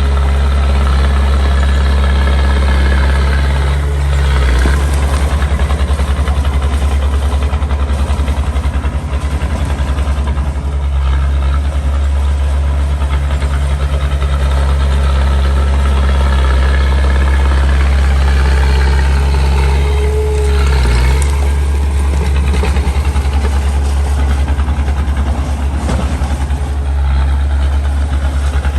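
Small crawler bulldozer's diesel engine running steadily with a deep hum, its note shifting briefly about four seconds in and again around twenty seconds in.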